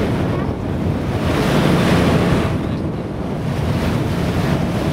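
Wind buffeting the microphone over the rush of water beside a moving cruise boat, swelling and easing every second or two.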